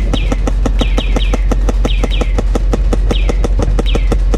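Airsoft rifle firing a long full-auto burst from a box magazine, about eight shots a second, with short falling chirps now and then. A Humvee's engine hums low and steady underneath.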